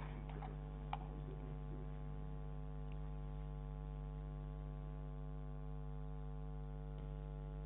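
Steady electrical mains hum, with a single faint click about a second in.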